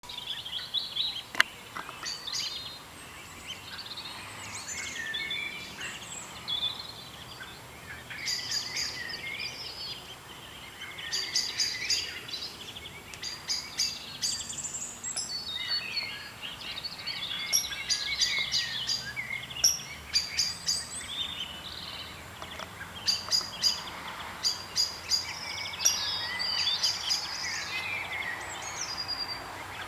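Several small birds singing together: varied warbling phrases and quick, high repeated trills throughout, with one sharp click about a second and a half in.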